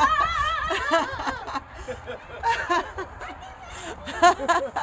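People giggling and laughing, with wavering voices early on and a quick run of laughs about four seconds in.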